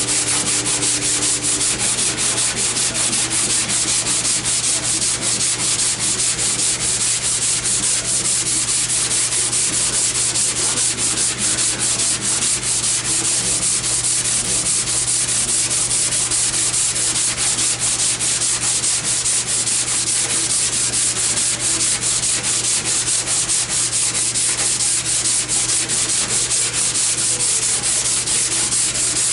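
Sandpaper rubbed by hand in quick back-and-forth strokes over body filler on a car's steel dog leg panel: a steady scratchy hiss. This is the filler being sanded smooth.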